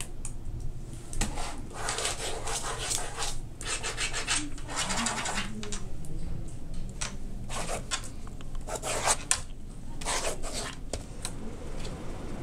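Pencil scratching on paper in a run of short writing and sketching strokes, each under a second, over a low steady room hum.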